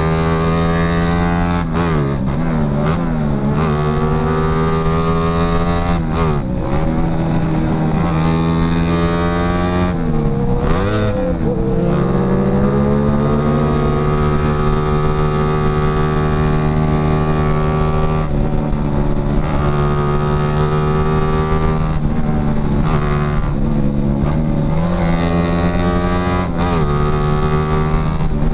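Yamaha Jupiter Z underbone motorcycle's single-cylinder four-stroke engine running under way, its note dropping and climbing back several times as the throttle is eased off and reopened, with a steady rush of wind on the microphone.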